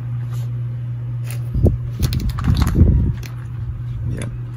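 Small plastic chess pieces clicking as they are set on a pocket-size chess board, with louder handling bumps and rustles about two seconds in, over a steady low hum.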